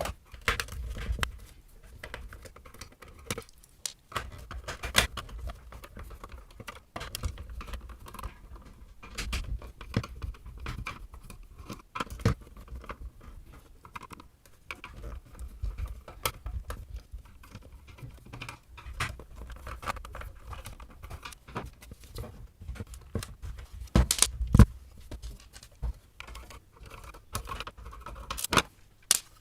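Parkside PHSSA 20-Li A1 handheld vacuum cleaner being taken apart by hand: irregular clicks, taps and knocks as its parts are handled and opened, with a few louder sharp knocks near the end.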